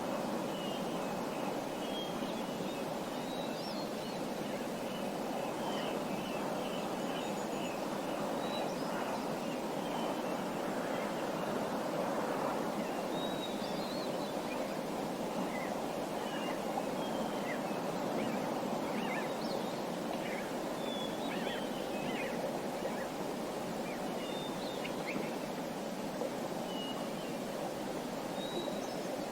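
Small birds chirping, with short, high calls scattered throughout, over a steady rushing background noise.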